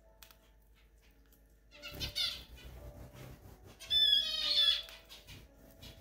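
Cockatiel calling: a short squawky chirp about two seconds in, then a louder run of high, quick chirps about four seconds in, with faint clicks in between.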